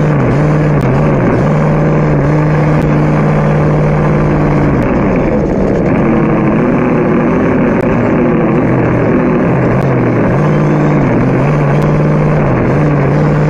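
Engine-like drone from the RC rig, running steadily at a low pitch and dipping briefly several times, over a steady rushing noise as it drives along.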